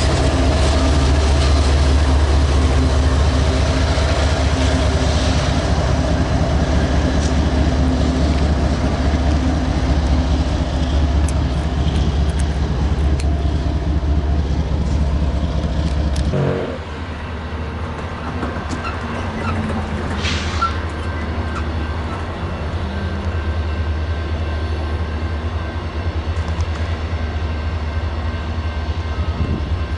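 Freight train passing behind a diesel locomotive: a steady engine drone with the rumble of cars rolling on the rails. About halfway through the sound drops suddenly to a quieter, more distant train rumble.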